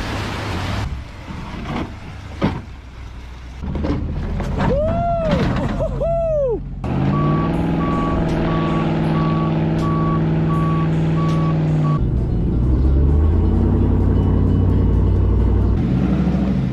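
A series of truck sounds: muddy water splashing at the start, then a heavy service truck's engine running while its reversing beeper sounds steadily for about five seconds, then another engine idling.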